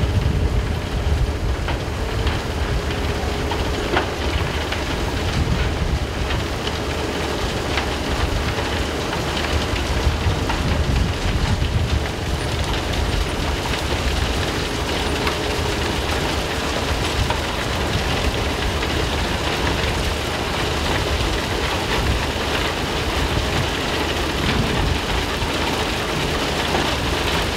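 Recycling-plant machinery running: conveyor belts and aggregate-processing equipment making a steady low rumble and hiss, with a faint hum and an occasional click.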